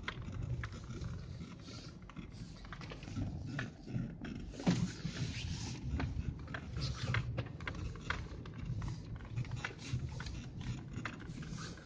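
Car driving slowly through deep snow, heard from inside the cabin: a low engine and road rumble under scattered crunching and crackling clicks from the tyres packing the snow.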